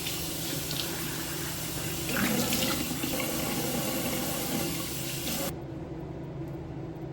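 Bathroom sink faucet running into the basin, the splashing louder from about two seconds in, then shut off abruptly about five and a half seconds in.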